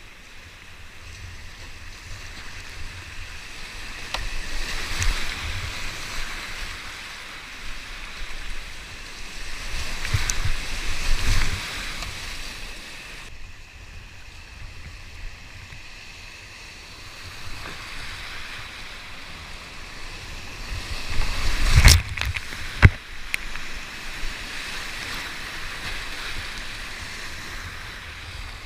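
Whitewater rushing around a kayak as it runs a series of small drops, the rush and splashing swelling three times as the boat goes through each one. About three-quarters of the way through, two sharp knocks a second apart stand out above the water.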